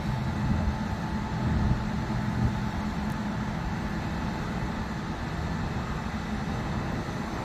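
Large mobile crane's diesel engine running steadily with a low hum while it hoists a load; it is a little louder in the first couple of seconds.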